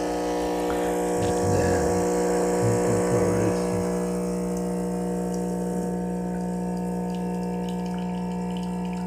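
DeLonghi ECP3120 espresso machine's pump humming steadily while brewing a shot, pushing water through the portafilter, with some gurgling and spluttering for the first few seconds.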